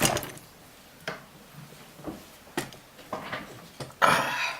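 Small hard objects being handled and set down on a work surface: a string of separate light clicks and knocks about a second apart, with a longer scraping rustle about four seconds in.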